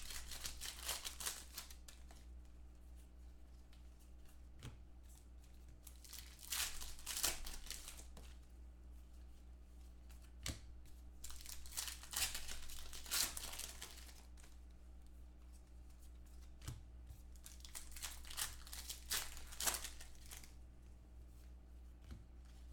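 Trading card pack wrappers being torn open and crinkled by hand, in several short bursts of rustling spread through the stretch.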